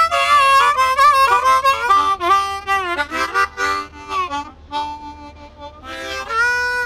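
Harmonica played with chords and bent notes: a fast busy run for about three seconds, then a few sparser held notes, ending on a long held chord.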